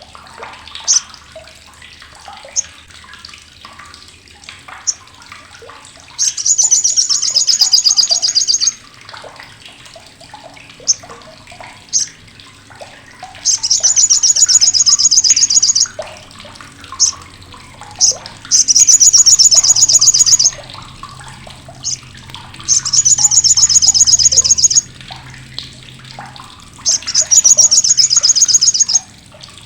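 Sogok ontong (sriganti) sunbird giving its harsh, sharp crecetan chatter: five loud high-pitched rattling bursts of about two seconds each, with single sharp chips in between.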